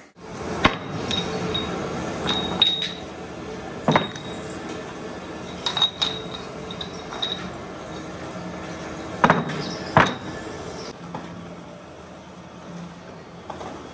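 Steel truck kingpins clinking and knocking against one another as they are set down and arranged in a row: irregular sharp metallic clinks, some ringing briefly, over a steady background hum.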